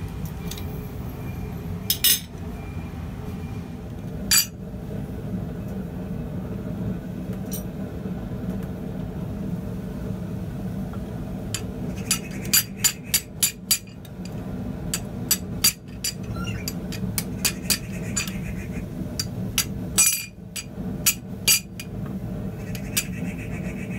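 Hammer blows on hot steel over an anvil, sharp metallic clinks: two single blows in the first few seconds, then runs of quick blows through the second half. A steady low hum runs underneath.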